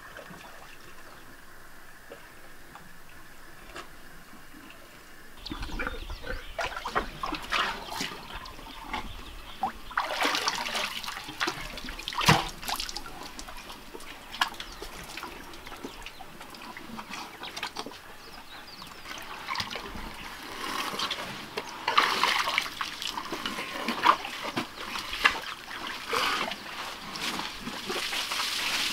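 African elephants drinking from a small pool: irregular splashing, slurping and trickling as trunks draw up water and spill it back, starting about five seconds in after a quieter stretch, with a few sharper splashes.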